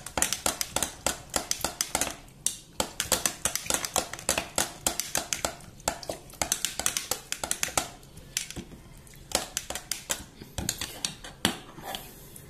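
Metal spoon clinking and tapping against the inside of a glass jar as a vinegar dipping sauce is stirred and pressed, quick taps about four or five a second that thin out to scattered clicks in the last few seconds.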